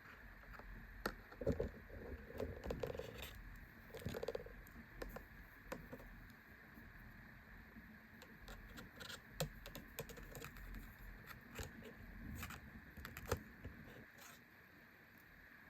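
Plastic action figure and its accessories being handled: scattered light clicks, taps and scrapes as rope pieces are plugged into a small plastic billy club and posed.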